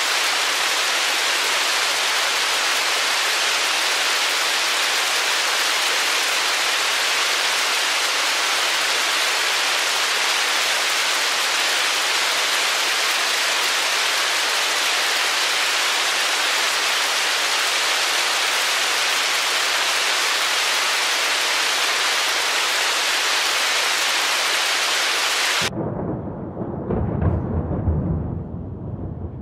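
Hailstorm pelting down in a dense, steady roar of hiss. About 26 seconds in it cuts abruptly to a lower, uneven rumble that swells louder near the end.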